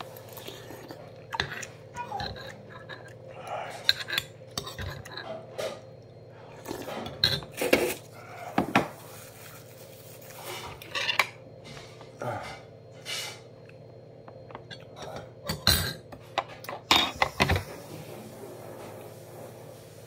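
Metal spoon and chopsticks clinking and knocking against bowls and dishes while eating, an irregular run of separate sharp clinks, the loudest about eight seconds in and again near the end.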